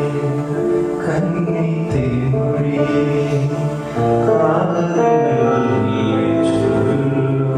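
Live band music: a man singing long, drawn-out notes into a microphone over steady instrumental accompaniment.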